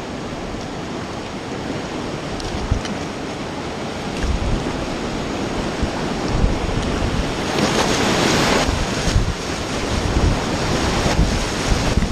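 Rushing river water and splashing around a whitewater kayak, with wind buffeting the microphone. It gets louder about two-thirds of the way through as the kayak runs into the rapid.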